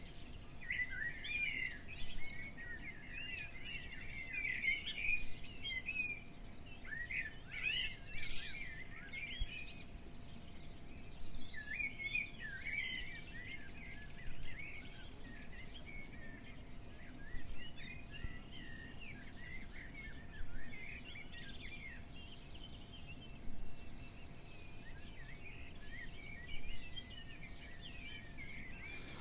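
Small songbirds singing in quick, high twittering phrases, one after another, over a low steady background rumble and a faint steady hum.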